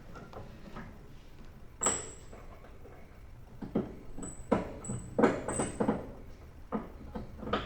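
Metal clanks and knocks from a riding mower's steel cutting deck and its fittings being worked loose by hand. One clank about two seconds in, then a cluster of them between about three and a half and six seconds in, several with a short high ring.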